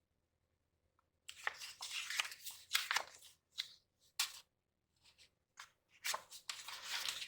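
Sticker sheets and planner pages rustling and crinkling in the hands, in short bursts with a pause past the middle.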